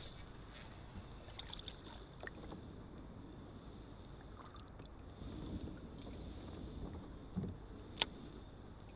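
Fishing kayak sitting on calm water: a faint low rumble with scattered small knocks and clicks from the hull and gear. A duller knock comes near the end, followed by one sharp click, the loudest sound.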